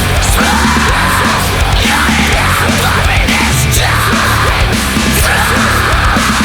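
Loud post-hardcore rock: distorted electric guitars and heavy drums playing without a break.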